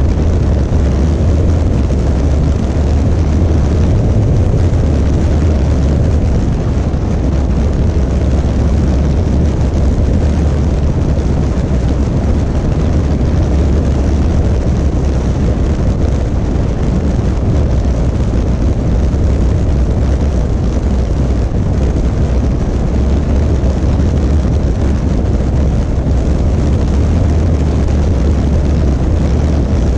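Steady wind rush on the camera microphone over the running of a 2018 Honda Africa Twin DCT motorcycle riding at speed, a constant deep rumble with no gear changes or breaks.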